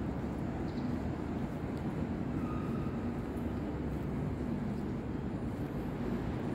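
A steady low rumble with no clear events, and a faint thin tone briefly about two and a half seconds in.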